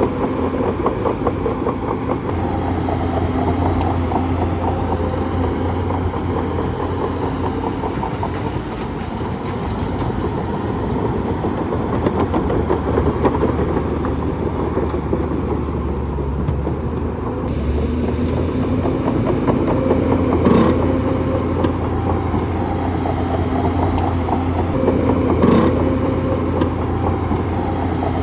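Bulldozer's diesel engine running steadily under a heavy low hum, with two sharp metallic clanks in the second half, about five seconds apart.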